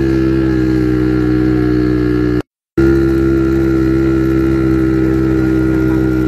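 Quad bike (ATV) engine running at a steady speed while riding over sand, with a constant drone. The sound cuts out completely for a moment about two and a half seconds in, then carries on unchanged.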